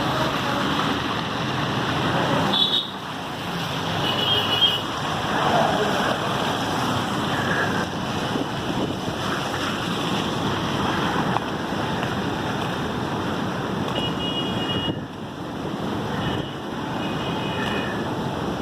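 Steady rushing noise of floodwater pouring through the dam, dipping briefly twice.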